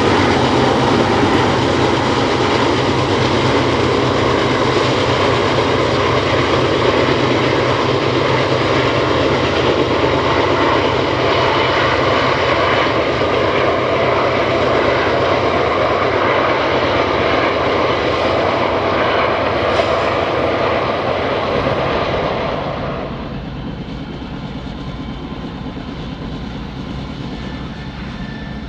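Aircraft engines running steadily with a constant rush and low drone; the level drops clearly about 23 seconds in and stays lower.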